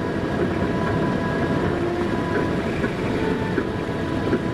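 Steady road and engine noise inside the cabin of a moving car, a low rumble without letup.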